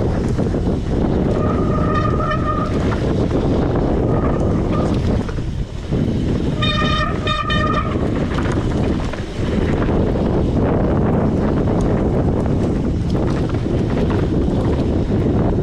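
Mountain bike ride on a helmet or action camera: a steady rumble of wind and trail noise. Three times it is cut by a short, steady high-pitched squeal, typical of disc brakes being dragged on a descent.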